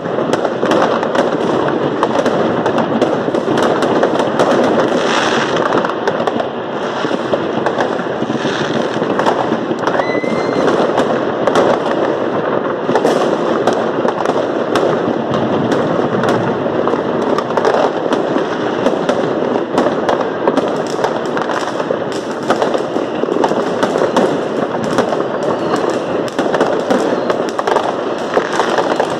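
Many fireworks and firecrackers going off at once: a constant dense crackle of bangs and pops with no break, and a short rising whistle about ten seconds in.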